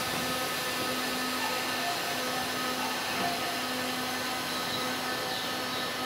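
Keisei AE-series Skyliner train standing still at the platform with its onboard equipment running: a steady whirring hum made up of several constant pitches, with no movement or braking.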